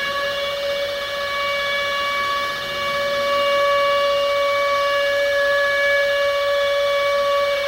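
Nuclear attack warning siren wailing, held at a steady high pitch after its rise, and beginning to fall away at the very end. This is the attack warning signal.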